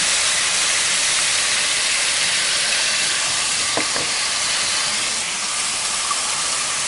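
Squid frying in oil in a wok: a steady sizzling hiss.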